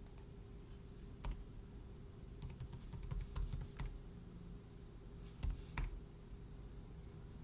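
Computer keyboard being typed on: a single keystroke about a second in, a quick run of keystrokes around the middle, then two more keystrokes near the end, over a faint steady hum.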